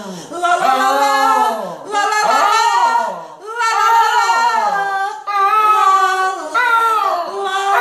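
A fox terrier howling along with a woman singing, a duet of long held notes that slide down in pitch, broken by short pauses.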